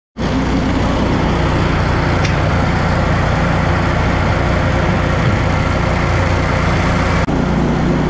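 Belt grain conveyor running, shelled corn pouring onto the moving belt over a steady low machine hum.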